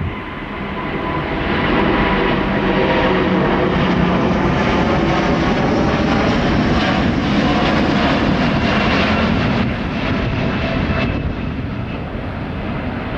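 Jet airliner engines at takeoff power as the aircraft departs past. The sound builds over the first two seconds, holds loud with a faint whine over it, then eases off about ten seconds in.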